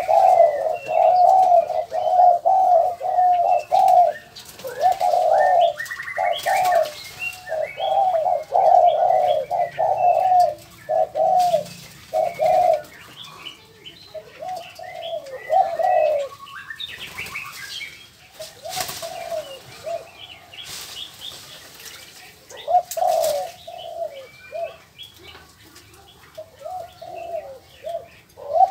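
Aviary doves cooing in repeated short phrases, thickest through the first half and sparser later, with scattered higher chirps from other birds.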